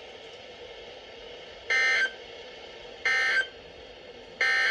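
Emergency Alert System end-of-message data bursts: three identical short, shrill electronic bursts about a third of a second each, roughly a second apart, over faint radio hiss. They mark the end of the flash flood warning.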